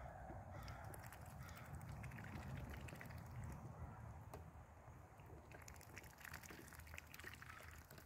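Faint dabbling and drinking of Cayuga ducks with their bills in a plastic wading pool: small splashes and clicks of water, more of them in the second half.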